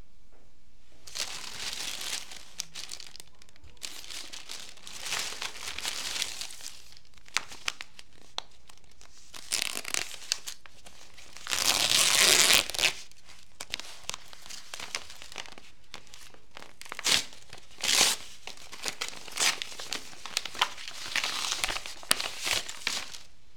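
Plastic carrier bag and gift-wrapping paper crinkling and rustling in irregular bursts as a present is unwrapped by hand, with some tearing of the paper; the longest, loudest burst comes about halfway through.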